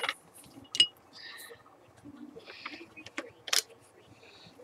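Handling noise on a workbench as test leads and tools are moved about: light rustling with two sharp clicks, one a little under a second in and another about three and a half seconds in.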